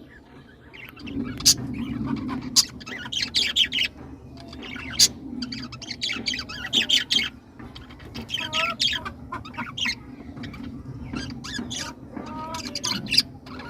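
A colony of birds chirping and squawking: many short, sharp calls overlapping, some with brief whistled notes, over a steady low background rumble that starts about a second in.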